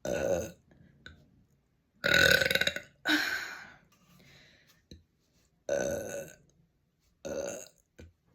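A person burping five times in a row, the loudest and longest burp about two seconds in.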